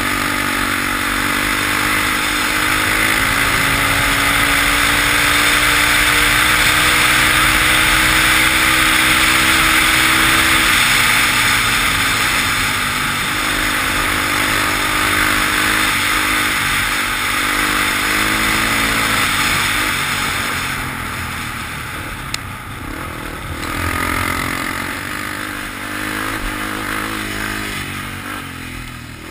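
Off-road vehicle engine running under throttle on a gravel track. Its pitch climbs slowly for about ten seconds, drops, then rises and falls with the throttle, under a steady rushing noise on the helmet-mounted microphone. It gets quieter in the last third.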